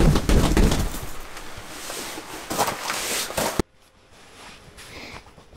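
A hand thumping and pushing up on the fabric roof of an Eskimo pop-up ice shack to stand the sagging shack back up: several dull thumps, then rustling fabric. The sound cuts off abruptly about three and a half seconds in to a faint hum.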